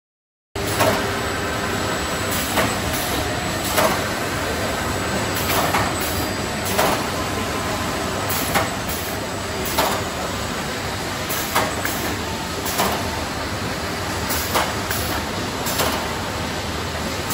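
Factory noise from a wood-profile unloading machine at work: a steady mechanical din with a sharp clack about once a second, sometimes two close together. The sound cuts in abruptly about half a second in.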